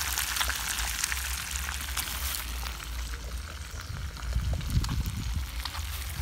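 Whole fish frying in hot oil in a pan: a dense crackle and sizzle that thins out about two and a half seconds in. A brief low rumble comes about four and a half seconds in.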